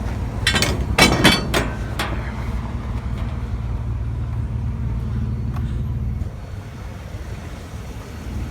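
Vehicle engine idling with a steady low hum, with a few sharp knocks about a second in; the engine hum drops away about six seconds in.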